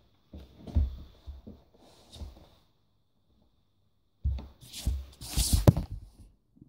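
Plastic penny board and sock-clad feet knocking and thumping on a wooden floor: a few knocks in the first two and a half seconds, a short pause, then about two seconds of louder scraping and clattering with heavy thumps.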